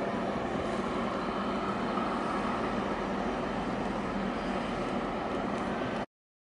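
Steady harbour-side background noise, an even rumble and hiss with no distinct events, that cuts off abruptly about six seconds in.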